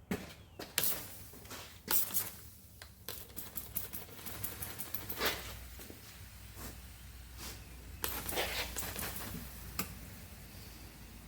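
Irregular sharp clicks and knocks with some rustling, like tools and metal being handled on a bench, over a faint low hum. No grinder or other machine is running.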